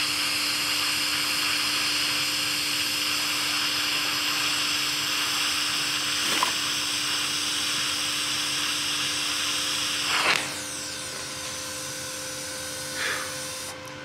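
VEVOR 210A TIG welder's arc hissing steadily with a constant hum as a bead is run on steel. The arc cuts off about ten seconds in, leaving a quieter steady hum.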